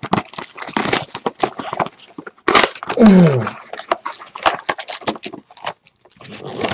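Foil football card packs crinkling and crackling as they are handled and opened by hand, in quick irregular rustles. A short falling hum from a voice comes about three seconds in.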